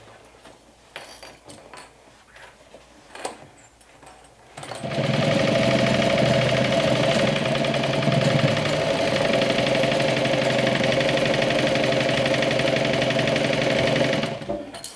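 A few light handling clicks, then about five seconds in a sewing machine starts and runs steadily at speed, stitching a seam, and stops near the end.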